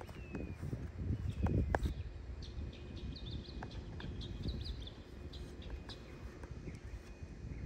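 Small birds chirping outdoors, a quick run of short high chirps through the middle, over a low rumble that is loudest in the first couple of seconds.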